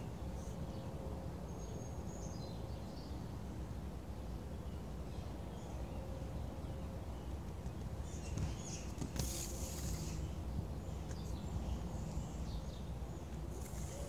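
Outdoor ambience: a steady low rumble with scattered faint bird chirps. A brief hissing scrape comes about nine seconds in, and a shorter one near the end.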